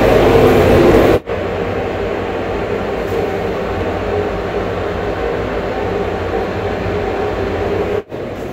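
Toilet water rushing as it flushes and refills. It is louder for the first second, then a steadier, slightly quieter rush, broken by two abrupt cut-outs, about a second in and near the end.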